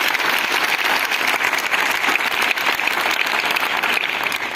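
A large crowd of schoolchildren applauding, a dense steady clapping that eases off slightly near the end.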